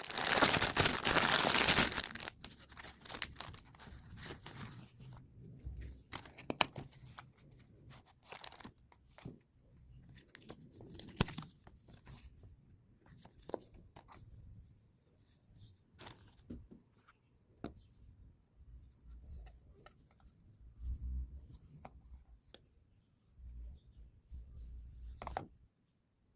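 Cosmetic packaging being unboxed: a loud tearing of wrapping for the first two seconds, then scattered rustling, crinkling and small clicks and knocks as the package is handled.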